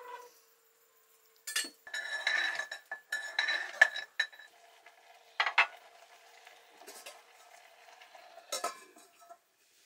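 A metal ladle scraping and clinking around inside a metal cooking pot, with ringing metallic knocks, then a metal lid set down on the pot with a clank near the end.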